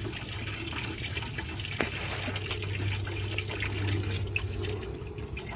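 Engine coolant draining from a 1997 Dodge Ram's cooling system in a steady stream, filling a bucket, with one small knock about two seconds in.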